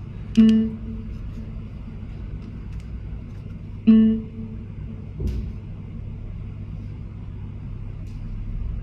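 Sparse music: two single plucked notes about three and a half seconds apart, each ringing out and fading, over a steady low hum. There is a short dull thump about five seconds in.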